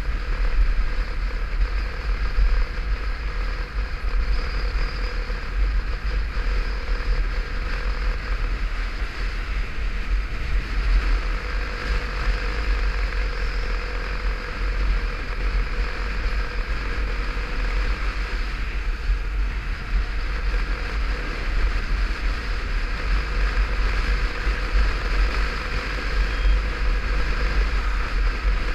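Motorcycle riding at a steady cruising speed: heavy wind rumble on the camera's microphone over the engine's steady drone.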